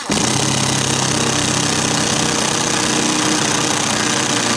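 Cordless 18-volt impact driver hammering steadily as it drives an eye bolt up into a wooden ceiling joist; the rapid impacts start sharply right at the beginning and run on without a break.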